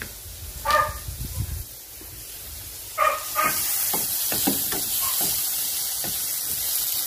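Onions and tomatoes sizzling in hot oil in a wok, with a wooden spatula scraping and stirring them. The sizzle comes in about three seconds in and holds steady. A dog barks twice, about a second in and again as the sizzle begins.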